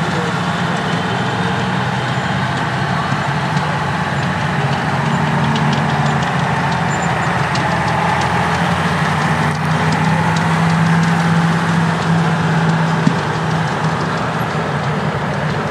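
Vintage International Harvester trucks driving past one after another, their engines running steadily.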